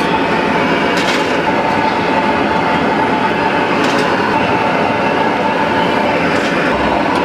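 Hot oil sizzling steadily in a wide kadai as batter fritters deep-fry, with a few sharp clinks of a perforated steel skimmer against steel vessels.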